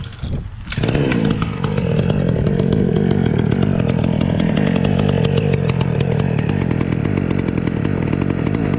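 Small two-stroke chainsaw-type engine used as a rat smoker, pumping its exhaust smoke down a rat hole. It comes in suddenly about a second in and then runs steadily and loudly.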